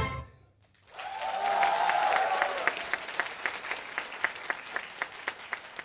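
An electric violin piece with its backing music ends abruptly. After a moment of silence the audience bursts into applause that settles into rhythmic clapping in unison, about four claps a second, gradually fading.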